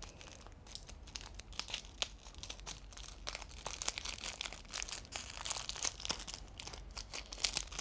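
Thin clear plastic packaging crinkling as it is handled and worked at with scissors, a quiet, busy run of small crackles.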